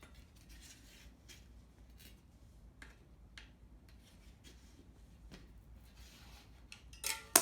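Bicycle tire and plastic tire lever rubbing and clicking against the wheel rim as one side of the tire is worked over it, with a louder sharp clack near the end.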